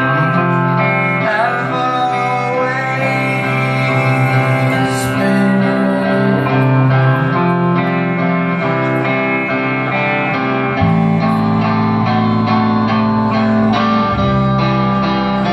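Live rock band playing: electric guitars ringing over bass and drums, with a deeper bass part entering about eleven seconds in.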